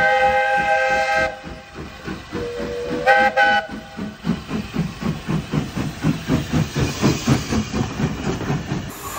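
Small steam tank locomotive blowing its whistle, a long blast that stops about a second in and a shorter blast about three seconds in, then its exhaust chuffing steadily at about three beats a second as it moves off.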